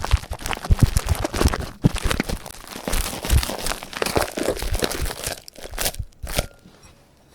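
Homemade Lifebuoy-soap slime being squished and stretched by hand, giving a dense run of crackling, popping clicks. These stop about five seconds in, and two short sharp sounds follow near the end.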